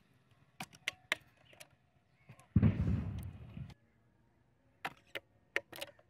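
Light clicks and taps from hands handling small wooden sticks, pliers and a plastic bottle: three near the start and four near the end. In the middle there is a loud, low rushing noise lasting about a second that stops abruptly.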